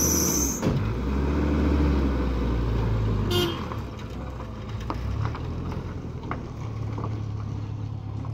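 A pickup truck's engine revving as the truck pulls away, with a brief high squeal in the first half-second and a short horn toot about three seconds in. The engine sound then drops and carries on more quietly as the truck drives off.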